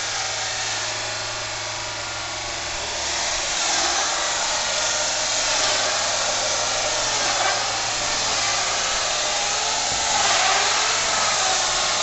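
Mini sawmill machinery running with a steady hissing machine noise and a low hum, growing louder about three seconds in and again around ten seconds.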